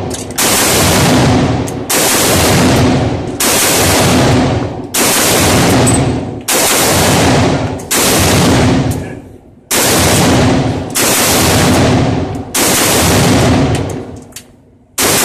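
PSA AK-101 rifle in 5.56 mm firing steel-case ammunition, about ten shots at a steady pace of roughly one every second and a half, each shot ringing on in the enclosed indoor range. The rifle cycles every round without a malfunction.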